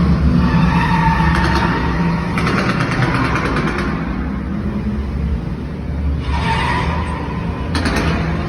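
Car engine and chase sound effects from the Fast & Furious Supercharged show, played loudly over the attraction's speakers: a steady low rumble with three short noisy bursts, about two and a half seconds in, about six seconds in and near the end.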